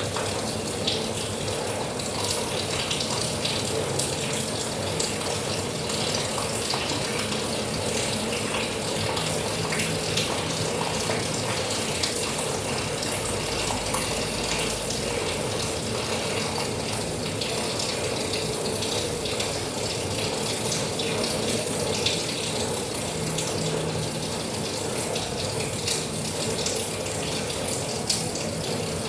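Steady rain falling, a dense even hiss full of fine drop impacts that keeps the same level throughout.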